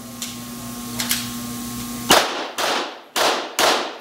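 A couple of light clicks in the first second, then from about two seconds in a Glock 17 9mm pistol fires rapid shots, four in under two seconds, each with a long echoing tail under the range roof.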